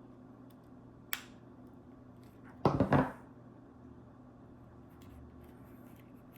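Zippo lighter being handled: a sharp metal click about a second in, then a quick cluster of metal knocks and clatter as the insert is taken out of the case.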